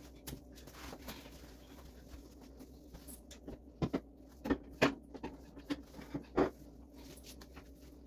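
Microfiber cloth wiping down wet shower tiles: quiet rubbing at first, then a run of short squeaks and knocks through the middle.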